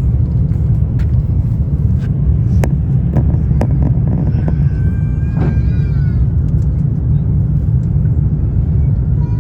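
A loud, steady low rumble, with a few sharp clicks and a short chirping call about five seconds in.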